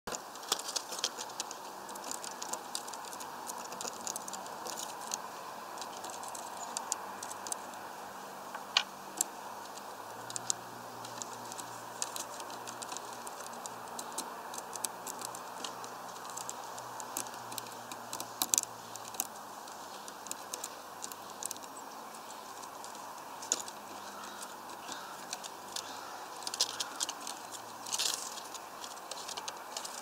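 Irregular light clicks and taps, a few louder than the rest, over a steady background hiss and a faint low hum.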